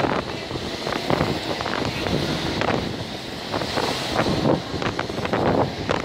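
Strong, gusty wind buffeting the microphone over a rough sea, with storm waves breaking and washing against the rocks and seawall in repeated rushes.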